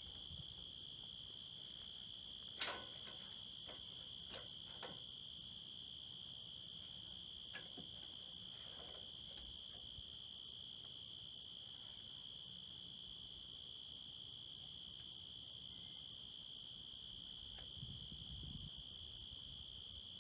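Steady high-pitched insect chorus from the surrounding field, with a few scattered knocks of wood and an aluminium ladder being handled, the loudest about two and a half seconds in.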